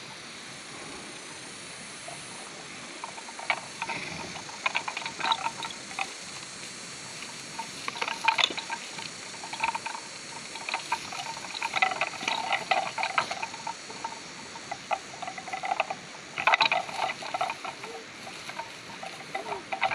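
Two water buffalo fighting with locked horns, heard as bursts of rapid clicking and crackling from horns and hooves in dry rice stubble, several times with pauses between.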